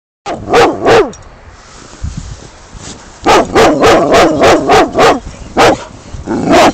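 Bernese Mountain Dog barking: two barks, a short pause, then a quick run of about seven barks at roughly three a second, and two more single barks near the end.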